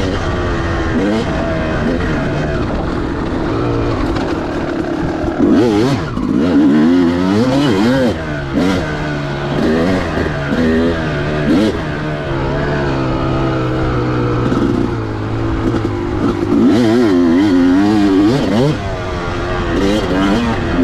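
2004 Kawasaki KX250's single-cylinder two-stroke engine being ridden, its pitch repeatedly rising under throttle and falling back as the bike is worked around a course.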